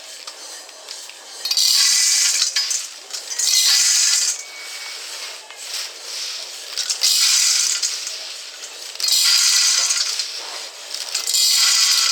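Coffee beans rattling against a metal roaster in five bursts of about a second each, with softer rustling between them.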